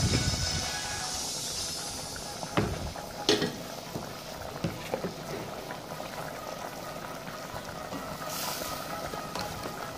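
Tomato sauce with potato chunks bubbling as it simmers in a stainless steel pot, with a few short knocks in the first half. Near the end, a brief louder hiss comes as pieces of boiled chicken liver and gizzard are added.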